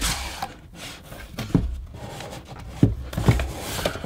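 Cardboard box being opened by hand: a scraping rustle at the start, then several sharp knocks and taps of the cardboard.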